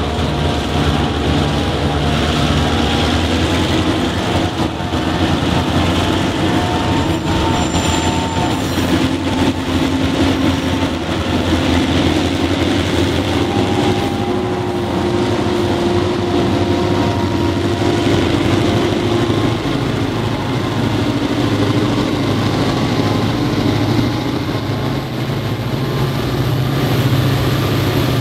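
Several EMD diesel-electric locomotives passing close by, their engines working hard under load as they haul a fully loaded grain train up a steep 1 in 52 grade. The engine note shifts a few times as one locomotive after another goes by.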